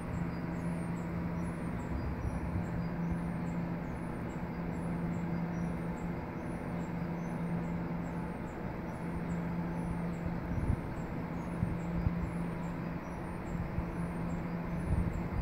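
Very Large Array radio telescope dish's drive equipment humming as the antenna slowly moves into position: a steady electric hum with one strong low tone and several higher ones over a mechanical whir. A few low thumps come in the second half.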